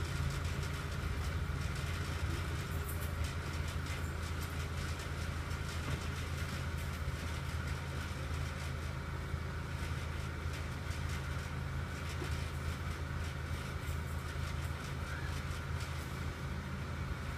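2006 Acura RSX Base running with a steady low drone. Over the drone come many quick, irregular rattling clicks: the rattle the owner is trying to track down.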